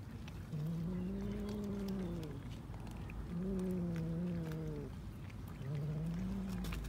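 Domestic cat giving three long, low yowls, each a second or more long, one after another with short gaps, the last one shorter.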